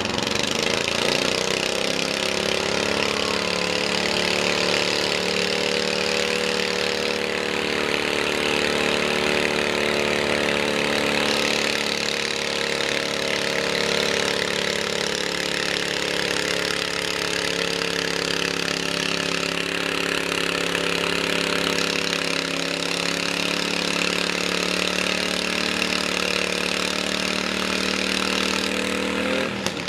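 Red garden tractor's engine running hard under load as it pulls a weight-transfer sled, a steady note with slight wavering in pitch. It drops away right at the end as the pull finishes.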